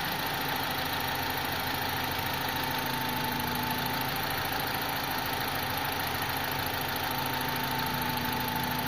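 BMW E46 engine idling steadily with an even note and a constant whine on top, running after a fresh timing chain replacement.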